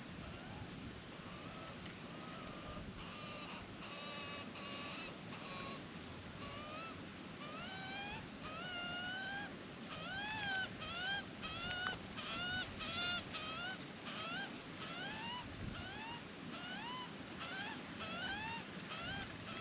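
Australian magpie calling: a few flat, held notes at first, then a rapid run of rising squawks, about one and a half a second, over steady wind noise.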